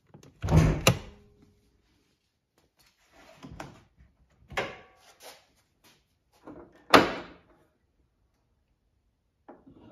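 Hood of a 2024 Toyota Prius being opened: the release lever is pulled and the latch pops with a knock about half a second in. Softer clunks follow as the secondary latch is released and the hood raised, then a sharp click about seven seconds in as the prop rod is set.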